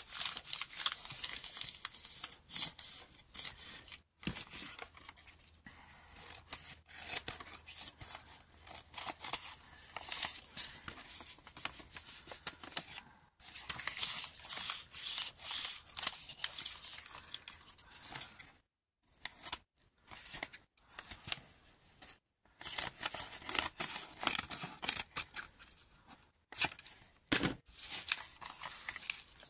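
Crumpled brown packing paper crinkling and rustling as it is handled, smoothed and folded, in irregular bursts with a few short pauses.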